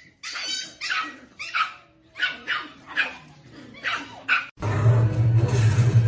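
A dog barking repeatedly, short sharp barks about two a second. About four and a half seconds in, the barking stops abruptly and a loud, steady low hum with noise takes over.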